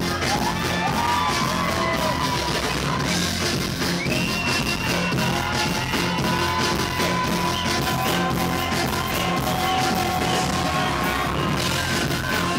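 Live dancehall music played loud through a PA, with a steady beat and heavy bass, and a voice yelling and singing over it.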